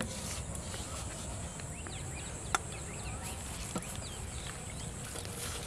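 Small birds chirping in short calls over a steady high-pitched insect drone, with one sharp click about two and a half seconds in.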